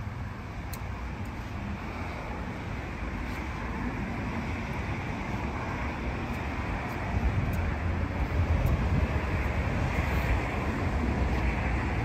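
Steady rumble of road traffic, swelling louder in the second half.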